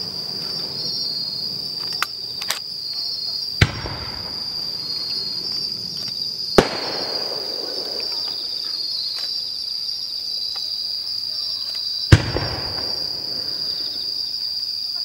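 Aerial firework shells bursting, with two light pops about two seconds in and three loud bangs about three and a half, six and a half and twelve seconds in, each trailing off in an echo. Insects sing in a steady high trill throughout.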